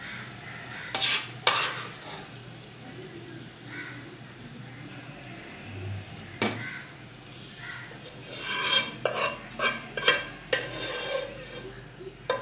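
Metal serving spoon scraping and clinking against a cooking pot while cooked okra is spooned into a bowl: a couple of sharp clinks about a second in, one more midway, and a run of scrapes and clinks near the end.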